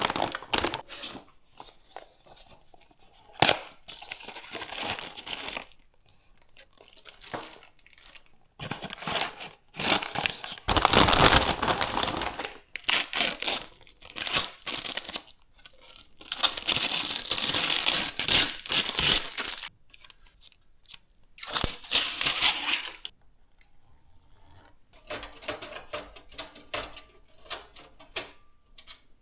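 Plastic wrapping being torn and crinkled by hand, in several rustling stretches of a second or more, with small clicks and quiet gaps between.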